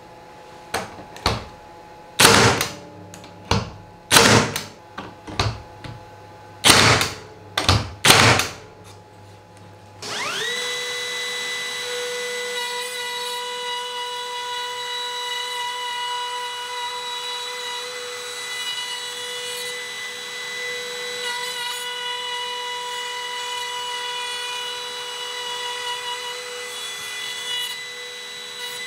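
HiKOKI cordless nailer firing about a dozen nails into a plywood jig, sharp clacks in quick runs. About ten seconds in, a cordless trim router spins up with a rising whine to a steady high pitch and runs on steadily while routing along the jig.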